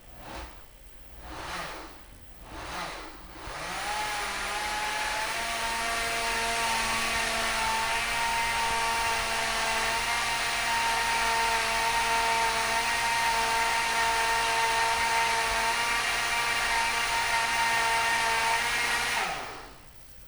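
A small motor spins up about three seconds in, runs at a steady pitch with a whine for about fifteen seconds, then winds down and stops near the end. Three brief whooshes come before it.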